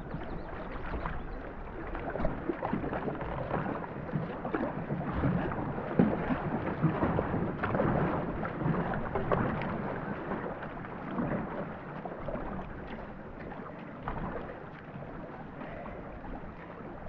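Paddles dipping and splashing and water rushing along the hull of a two-person racing canoe under way, a steady wash with frequent short splashes.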